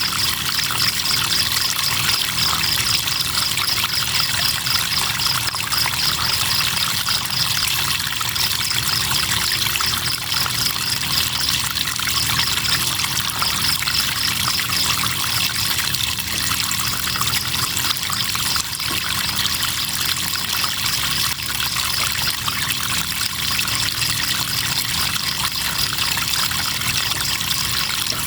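River water trickling and flowing steadily, with crickets chirping in a high, fast, even pulse.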